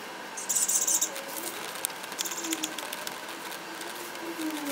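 Light clicks and plastic handling noises as a red Honda H emblem is pressed into a car's front grille, with a short hiss about half a second in, as of adhesive backing being peeled.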